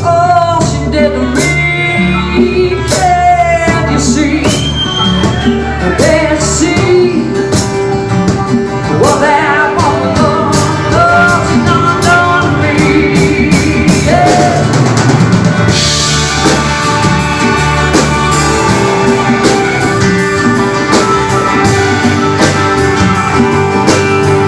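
Band playing a country-rock song: a drum kit keeps a steady beat under bending guitar lines, and the cymbals get brighter and busier about two-thirds of the way in.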